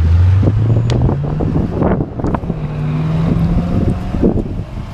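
A vehicle engine rising in pitch over the first second and a half, then running steadily, with several short knocks and clicks and wind on the microphone.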